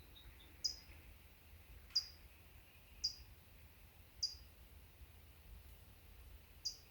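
A small bird giving short, high chip calls, each sliding quickly downward, five times about a second apart with a longer pause before the last.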